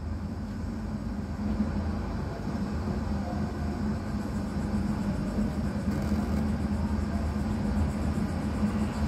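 Steady low rumble and hum with no speech: the background sound of a launch broadcast during a pause in the countdown commentary, played through a TV speaker.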